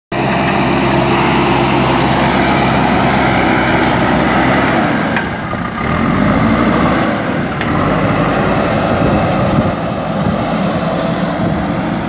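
JCB backhoe loader's diesel engine running steadily under load as the machine pushes gravel with its front loader bucket. The engine note changes about five seconds in.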